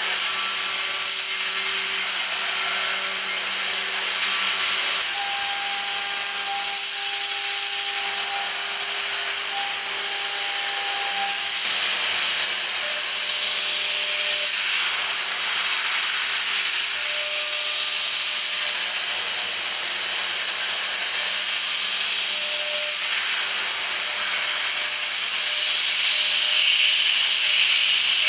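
CNC milling machine cutting aluminium with a solid-carbide end mill: a steady, loud, high hiss of cutting, with a few steady tones that shift to new pitches every few seconds.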